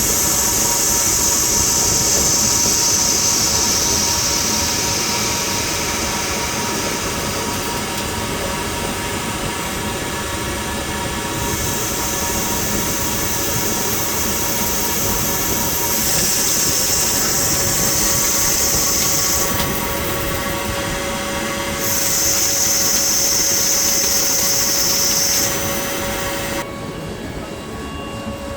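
CNC lathe machining a 316 stainless steel part: a steady machine hum with a few constant tones, and a high hiss that comes and goes in stretches of a few seconds. The hiss and part of the noise stop abruptly near the end, leaving a quieter hum.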